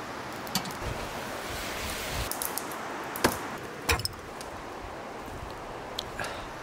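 Steady rushing outdoor noise with a handful of sharp metallic clinks from camp cookware: a cast-iron Dutch oven's wire handle and its hanging chain on a campfire tripod. The two loudest clinks come a little over three seconds in and just before four seconds.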